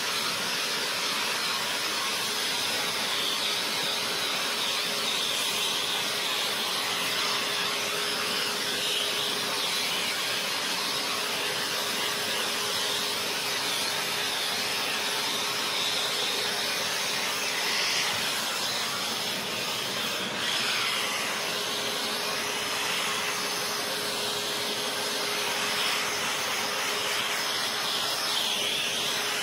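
Handheld steam cleaner hissing steadily as it jets steam onto fabric upholstery, with a faint steady hum beneath the hiss.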